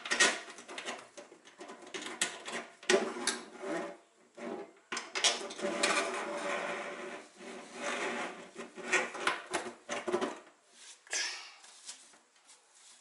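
Handling noise from a kitchen mixer tap being fitted into a stainless steel sink: irregular knocks and clatter of metal against the sink, with rustling and scraping as the tap and its hoses are worked down through the mounting hole.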